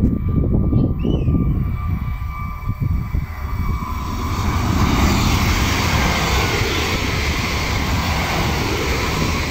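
Renfe high-speed train approaching and passing at speed. Its rush of air and wheel noise swells about four seconds in and stays loud as the carriages go by. Wind rumbles on the microphone throughout.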